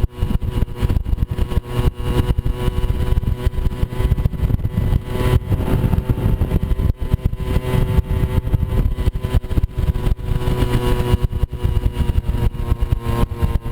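Moped scooter engine running steadily under way, with heavy low rumble and many short knocks.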